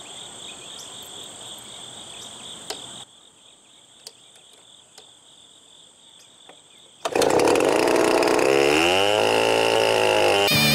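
Crickets or other insects chirping steadily, then, about seven seconds in, a 105cc two-stroke chainsaw starts up suddenly and revs up, its pitch rising. Music comes in near the end.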